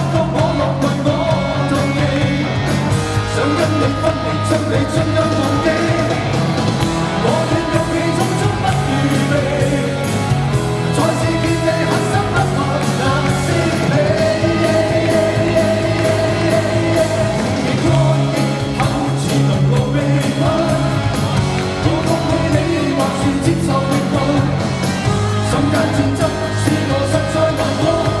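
Two male vocalists trading lines in an upbeat Cantopop duet, sung live over a band and orchestra with a driving dance beat.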